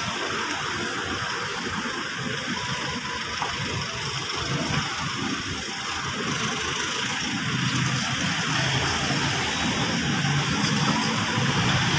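Steady street traffic: cars and trucks driving past on a multi-lane road, growing a little louder near the end.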